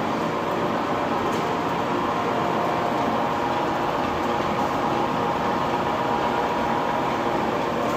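Cold press oil expeller running steadily: a constant mechanical drone with a faint steady hum.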